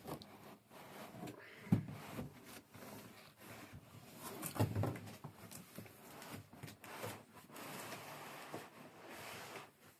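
Cardboard box and packing being handled as an espresso machine is lifted out: irregular rustling and scraping with scattered knocks, the sharpest a little under two seconds in.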